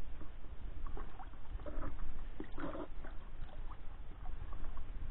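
Water splashing and sloshing in a plastic bucket as a hand moves in it among a live horse mackerel, in scattered short splashes over a steady low rumble.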